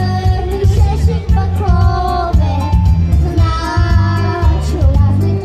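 Children's choir singing a pop song over a backing track with a heavy, steady bass beat, played through stage loudspeakers.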